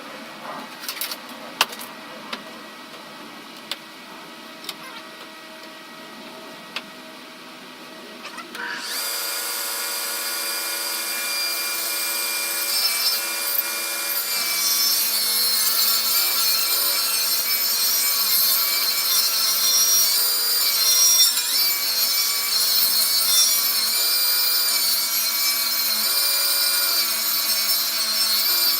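A few clicks and knocks, then about nine seconds in a table saw starts up and runs, its blade ripping the rough edge off a long, thick board clamped to a straight-edge jig. The noise builds as the cut gets going and stays loud and steady.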